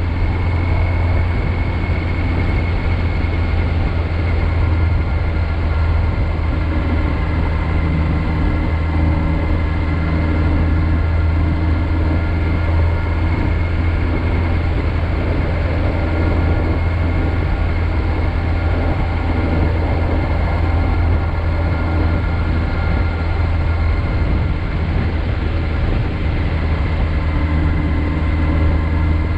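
Kawasaki Z900's inline-four engine running under way at a nearly constant speed, its note holding steady with little change in revs.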